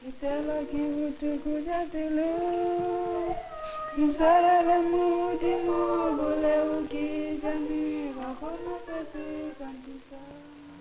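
A woman's voice singing a slow melody in long held notes that slide between pitches, fading out near the end.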